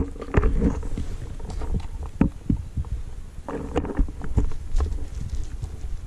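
Wind buffeting the microphone as a steady low rumble, with scattered short knocks and rustles of soil and the find being handled.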